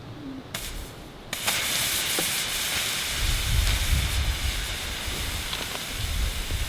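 Gas-fired melting furnace's burner coming on suddenly about a second in and running with a steady loud hiss over a low rumble.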